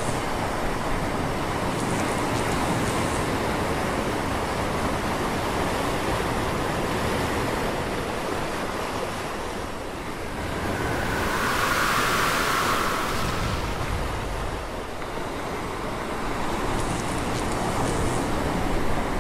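Steady rush of ocean surf, with a louder swell of rushing noise lasting a couple of seconds from about eleven seconds in.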